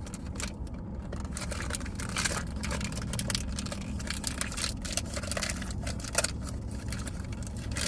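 Irregular plastic clicks and rustling as a mystery toy ball is handled and opened, over a steady low hum.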